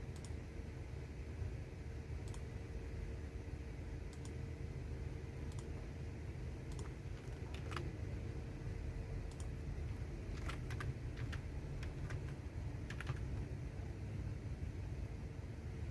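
Keys typed on a computer keyboard: sparse, irregular keystrokes with a couple of quick runs of clicks near the middle and later on, over a steady low background hum.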